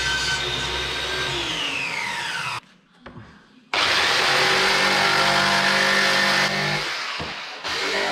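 A table saw running through a plywood panel, then winding down with a falling whine about two seconds in. After a short gap a handheld jigsaw starts cutting thin plywood, easing off briefly near the end before cutting again.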